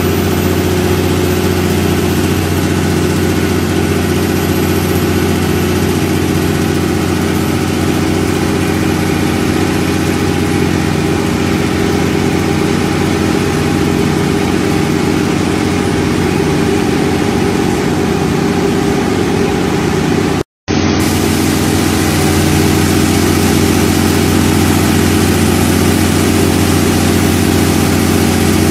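Brand-new Cummins 6CTA six-cylinder turbocharged diesel engine of a 200 kVA generator set running steadily, an even unchanging drone. The sound drops out for a moment about twenty seconds in.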